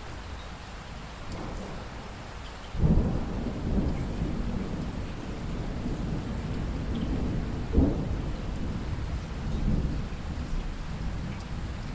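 Steady rain with thunder: a sudden clap about three seconds in, rolling on as a low rumble, with a second sharp crack near eight seconds and a further swell soon after.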